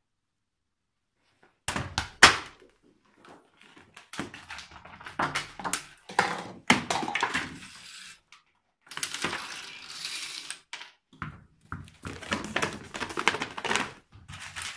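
Household chain-reaction contraption running: an irregular string of knocks, thuds and rattles as objects tip, fall and roll, the loudest a sharp knock a little over two seconds in.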